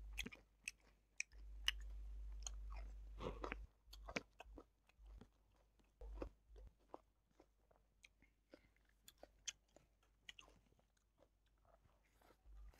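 Faint, close-miked chewing and mouth sounds of a person eating by hand: irregular wet smacks and small clicks.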